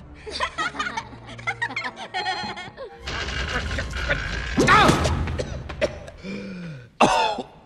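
Cartoon girls' voices laughing and snickering mockingly over background music. About three seconds in, the sound changes abruptly to a louder, noisier stretch with a falling, voice-like cry a couple of seconds later and a sudden loud sound near the end.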